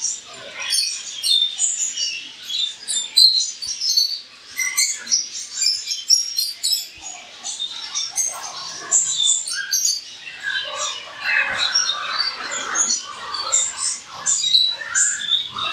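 Many small caged birds chirping together: a continuous chatter of short, high chirps overlapping one another.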